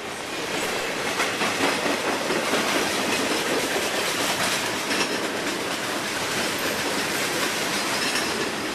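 Norfolk Southern freight train's cars, many of them rock hoppers, rolling past: a steady rumble of steel wheels on rail with clicking over the rail joints, swelling in the first second and then holding.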